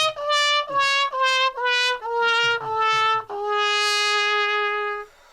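Trumpet-like brass notes stepping down in pitch, about seven short notes and then a long held low note that stops shortly before the end: a descending comic horn sound effect.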